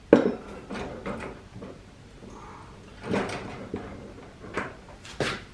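Knocks and clunks of a go-kart wheel and knobby tyre being fitted onto the rear axle by hand. The loudest knock comes just after the start, followed by several lighter ones.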